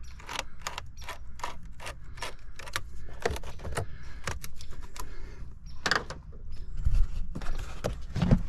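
Plastic air filter housing knocking and clattering as it is worked loose and pulled free, a fast irregular run of clicks and knocks with a louder cluster near the end.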